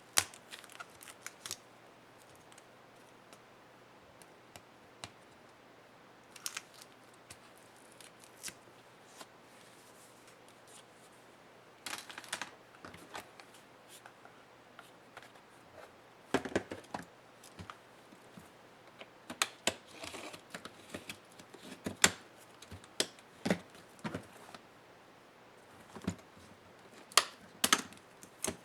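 Small laptop parts being handled and pried apart by hand during a disassembly: scattered clicks, taps and short scrapes. They come sparsely at first and grow busier in the second half.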